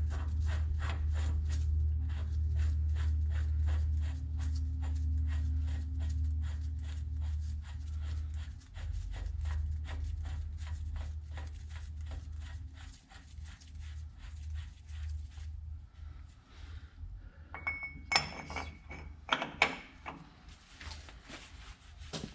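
A ratchet clicks steadily, about four times a second, as the large spindle nut is run down on the truck's front wheel hub, over a steady low hum. Near the end there are a few sharp, ringing metal clinks of tools and parts.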